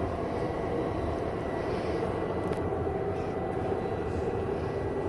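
Steady drone of a bus in motion, engine and road noise heard from inside the cabin, with a faint high whine running through it.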